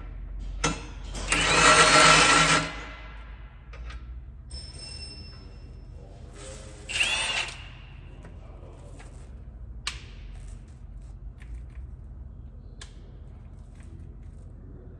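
Handheld power tool spinning a nut onto a carriage bolt in short runs: a whining run of about a second and a half a little over a second in, and a shorter one around seven seconds in, with a few clicks between.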